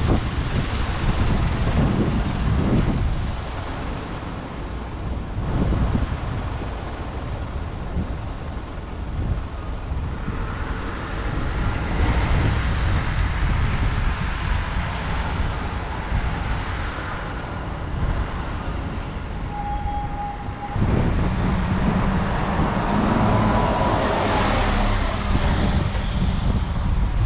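Buses driving past close by, their diesel engines running and pulling away. A louder bus accelerates away in the last few seconds with a rising engine note.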